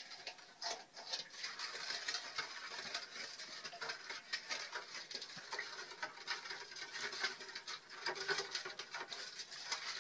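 A spoon stirring a watery yeast-and-sugar mixture in a stainless steel mixing bowl: a rapid, continuous run of small clicks and scrapes against the metal.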